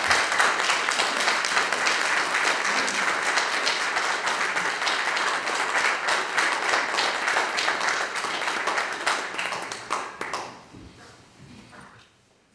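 Applause from a room full of people, many hands clapping, dying away about ten seconds in.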